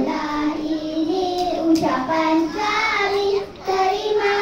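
A group of young children singing a song together in unison, moving between held notes, with a brief breath pause about three and a half seconds in.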